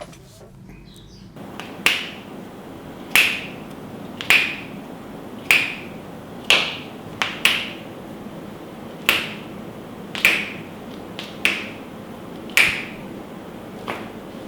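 Sharp snapping cracks from a barber's hands during a cracking massage, about a dozen in a row, roughly one a second, starting about two seconds in, with a couple of quick doubles.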